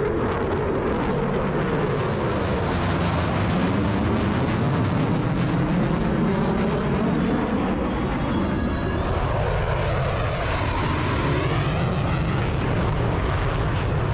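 Airplane flying over, a steady engine noise whose pitch glides up and down as it manoeuvres.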